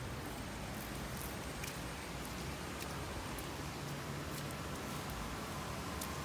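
Faint outdoor ambience: a steady low hiss and hum with a few small clicks and rustles of handling, and a faint thin tone held for a few seconds in the second half.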